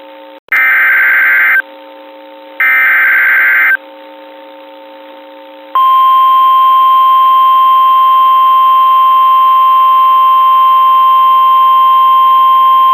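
Emergency Alert System SAME header: two harsh, buzzy digital data bursts, each about a second long. About two seconds later comes a single steady alarm tone of about 1050 Hz, the NOAA Weather Radio warning tone. Together they open a broadcast severe thunderstorm warning.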